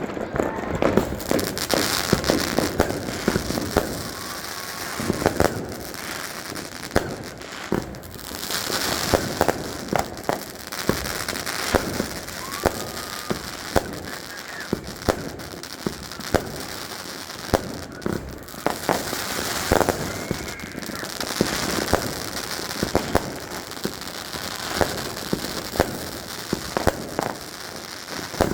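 Fireworks going off: a long, irregular run of sharp bangs over steady crackling.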